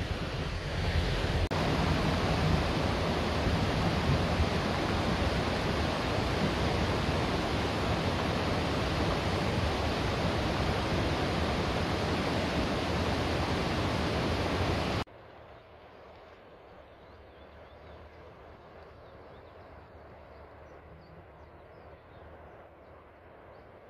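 Fast, silt-laden mountain river in spate rushing over stones: a loud, steady rush of water that cuts off abruptly about fifteen seconds in, leaving only a much fainter hiss.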